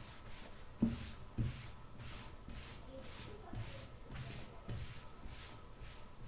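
Writing strokes: a regular run of short scratchy swishes, about two a second, with soft low knocks as the writing tool meets the surface.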